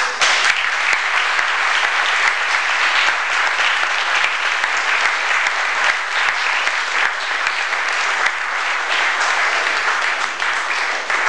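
Audience applauding: dense, steady clapping that starts abruptly and eases off near the end.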